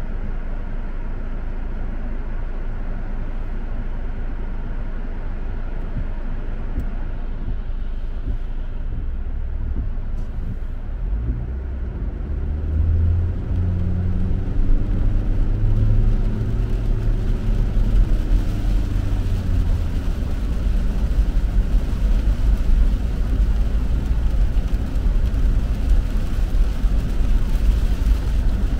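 Car heard from inside the cabin: a steady low hum while it stands still, then about twelve seconds in the engine note rises as the car pulls away. It settles into a louder, steady low driving rumble with tyre hiss on the wet road.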